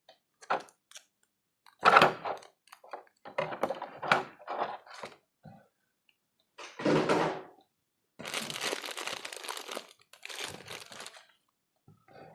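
Packaging being handled during an unboxing: crinkling and rustling in a series of separate bursts, with a longer unbroken stretch of crinkling about eight seconds in.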